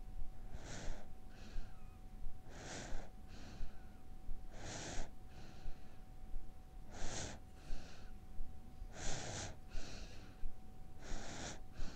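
Siberian husky breathing loudly in its sleep: a rasping breath in, then a softer one out, repeating about every two seconds.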